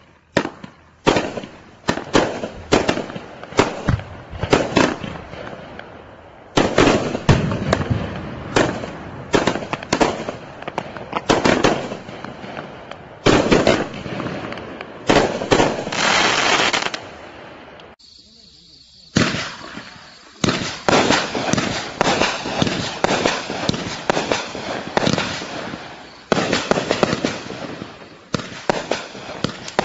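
Consumer aerial fireworks from a Sky Painter assortment firing in quick succession: a rapid run of sharp launch thumps and bursting reports, each with a trailing crackle and decay. There is a short pause about eighteen seconds in, before the next item starts firing.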